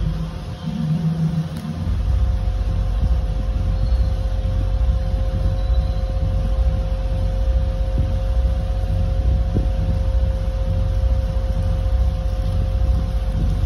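Steady low rumble with a constant hum from running machinery, and a couple of faint taps partway through.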